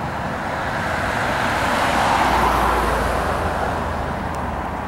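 Two fighter jets flying over in formation: jet engine noise that swells to its loudest about halfway through, then fades.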